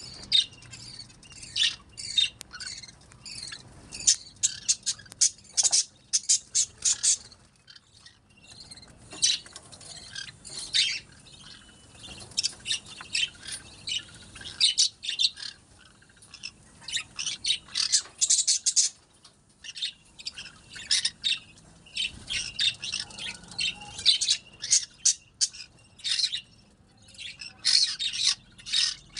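Lovebirds chirping and squawking: a rapid, almost unbroken string of short, sharp, high-pitched calls with a few brief lulls.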